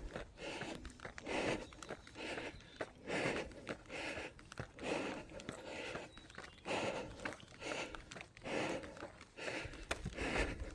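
Heavy, rhythmic breathing of a runner climbing a mountain trail, a breath about every second, with footsteps on the path.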